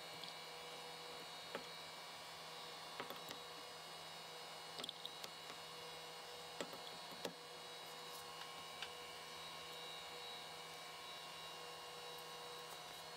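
Steady hum from the powered-up CNC mill, with scattered small clicks and knocks as D-cell batteries are pulled from and pressed into the battery holder. The machine is kept running during the swap so its parameters are not lost.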